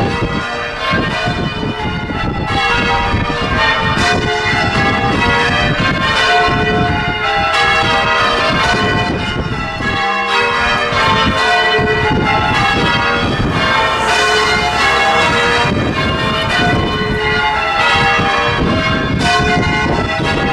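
Church bells being change rung: a continuous run of bell strikes following one another in quick succession, each bell ringing on under the next.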